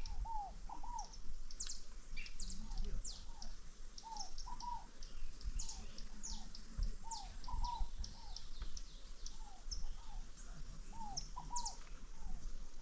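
Birds calling in the open: many quick, high, downward chirps over a lower arching note that repeats every second or so.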